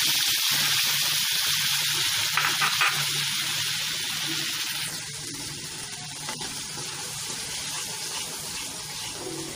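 Tomato-onion puree poured into hot oil in a kadhai, sizzling loudly; the sizzle eases off about five seconds in as the wet puree cools the oil, then carries on more quietly.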